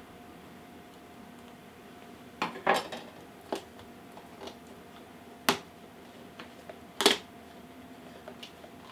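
Packaging of a computer mouse's retail box being handled: about six separate sharp clicks and knocks of hard plastic and cardboard, spread out with gaps between them, the loudest a little past the middle and again near the end.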